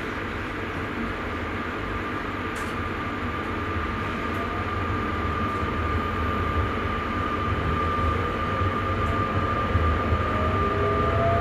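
Electric sprinter train running, heard from the driver's cab. There is a steady rumble and rolling noise with a high electric whine, growing slowly louder. Near the end, further whines rise in pitch.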